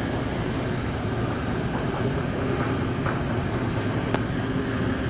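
Steady low rumble of a moving vehicle, with one brief click near the end.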